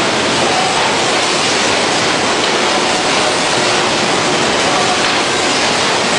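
Steady, loud rushing noise of plywood-factory machinery around a 100-opening hot press, even throughout with no distinct knocks or strokes.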